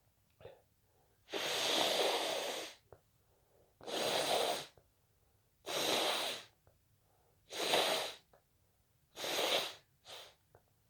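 A person sneezing again and again in an induced sneezing fit: five loud, wet sneezes about two seconds apart, then a smaller one near the end.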